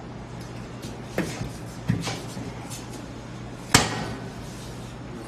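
Tire iron clanking against the wheel and tire-changer as a tire bead is levered over an alloy rim: a few sharp metal knocks, the loudest nearly four seconds in, over a steady low hum.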